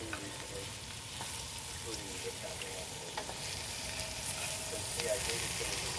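A pan of beef neck bones, onions and potatoes frying in butter, with a steady sizzle and a few light clicks, as of a utensil against the pan.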